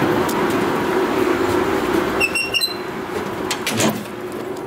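Steady hum of building machinery in a utility room, with a few short squeaks and sharp clicks a little past the middle as a metal door handle is worked.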